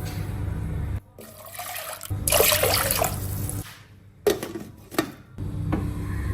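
Liquid poured into a cooking pot, a rushing splash in short clips that start and stop suddenly, over a steady low kitchen hum.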